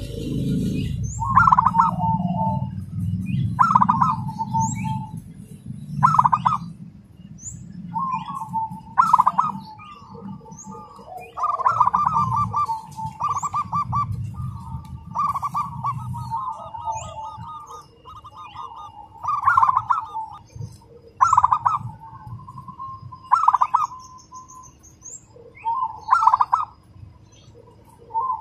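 Zebra dove (perkutut) cooing in its cage: fast, close-packed rattling coo phrases repeated about every two seconds, with a longer unbroken run of cooing near the middle.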